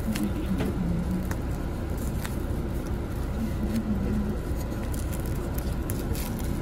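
Steady rumble inside a moving vehicle's cabin, with the crinkle and crackle of plastic cling film being peeled off a food tray by hand.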